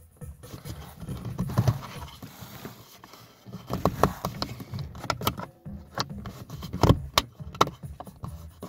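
Plastic cover over a rear-view mirror base being handled and pressed: a run of irregular plastic clicks, taps and rattles, with dull handling bumps.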